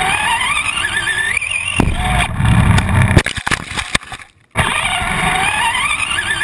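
RC car's motor whining and rising in pitch as it accelerates hard, heard from a camera mounted on the car with rumble from the ride. Around three seconds in it breaks into a series of sharp knocks and clatter as the car tumbles, with a brief dropout. Then the same rising acceleration whine starts again.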